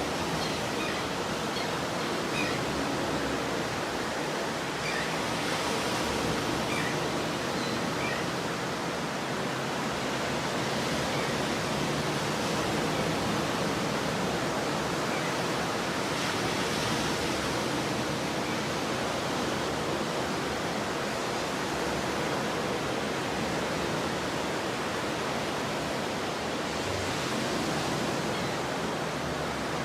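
Stormy ocean surf: a steady, even roar of breaking waves, with no single crash standing out.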